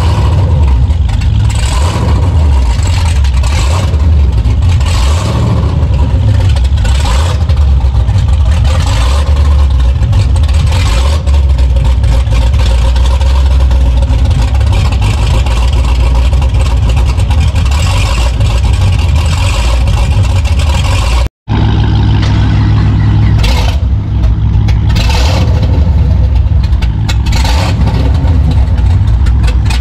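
Loud, cammed and supercharged 427 LSX V8 running, with strong low rumble and an uneven pulse. The sound breaks off for an instant about two-thirds of the way through, then the engine is running again.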